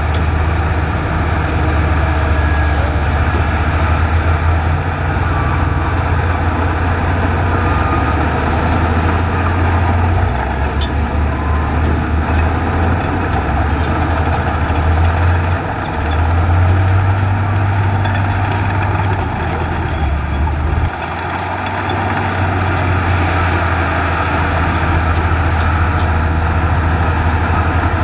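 Crawler bulldozer diesel engines running under load while pushing dirt, a loud steady low drone. The engine note shifts several times: it rises about 16 seconds in and drops back sharply around 21 seconds.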